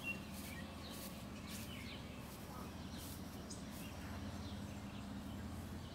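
Window air conditioner running outdoors: a steady low hum, with faint bird chirps over it.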